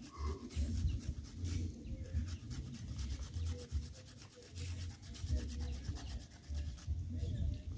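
Carrots being grated on a flat hand grater: a steady run of quick, repeated rasping strokes.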